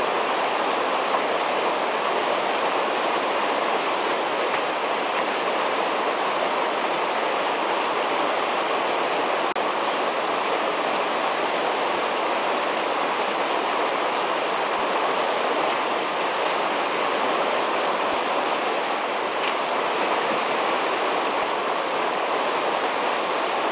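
Steady rush of whitewater churning through a standing wave and hole in a concrete whitewater channel, an even, unbroken noise of turbulent water.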